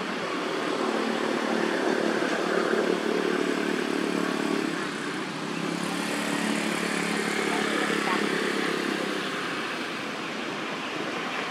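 An engine running steadily, with a low hum that shifts a little in pitch over a hissing background, easing slightly near the end.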